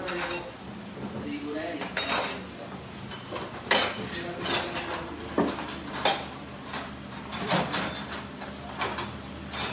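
Metal hand tools and parts clinking and knocking against each other at irregular intervals, about a dozen sharp clanks, during work on a power steering rack and pinion from underneath the vehicle.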